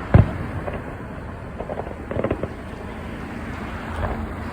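Fireworks shells bursting. A loud bang comes just after the start, then a cluster of smaller crackling pops about two seconds in, and another burst near the end.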